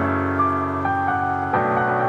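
Background music with gentle held keyboard chords and a soft melody; the chord changes about one and a half seconds in.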